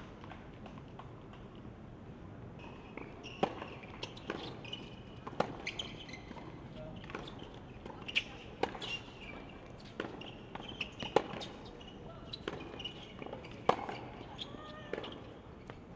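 Tennis ball struck by rackets and bouncing on a hard court during a rally: a series of sharp pops at irregular intervals of about a second, the loudest a little past the middle.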